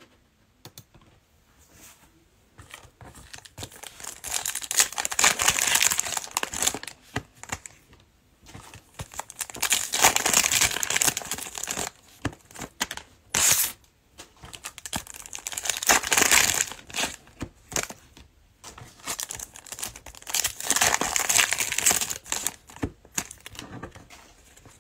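Plastic cello wrappers of Panini Mosaic football card packs crinkling and tearing as packs are ripped open one after another, in about five separate bursts of a second or three each.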